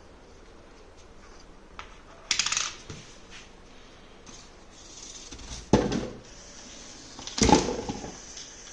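Coins dispensed by a motor-driven coin mechanism, dropping and clattering into a small clear plastic tray. There are three separate clatters: one about two seconds in, one near six seconds, and the loudest near the end with a short metallic ring.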